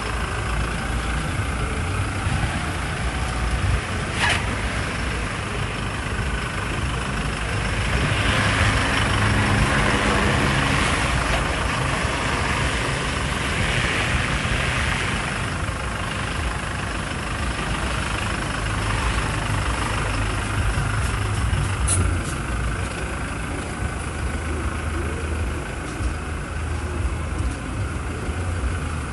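Toyota Hilux Conquest pickup's diesel engine idling with a steady low hum. A louder hiss swells for several seconds about eight seconds in, and there are two sharp clicks.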